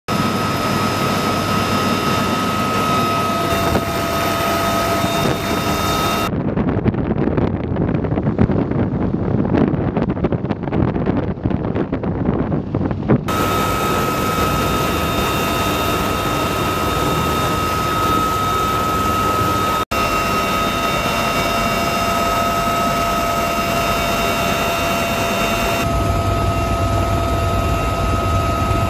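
Military helicopter turbine and rotor noise heard from inside the aircraft: a loud steady drone with a high, steady turbine whine over it. In the middle the whine drops out for several seconds and the noise turns rough and buffeting before the steady whine returns.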